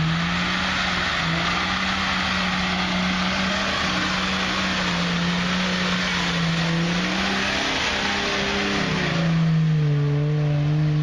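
Jeep Cherokee XJ's 4.0-litre inline-six engine revving up and down as it drives through deep mud, over a steady rush of spinning tyres churning mud and water. The engine pitch drops and settles lower near the end.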